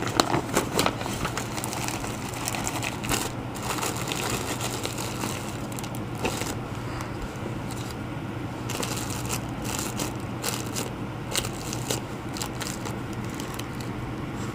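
Plastic packaging crinkling and rustling in irregular bursts as a mail package is handled and opened by hand, over a steady low hum.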